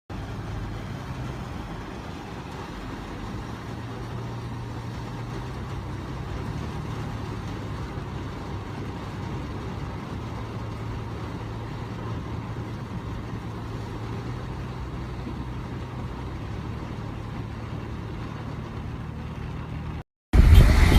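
An engine running steadily with a low hum, like a vehicle idling; it cuts off suddenly near the end.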